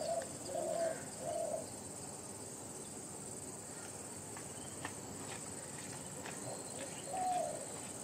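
Dove cooing: a short series of low, soft notes near the start and again near the end, over a steady high-pitched drone of insects.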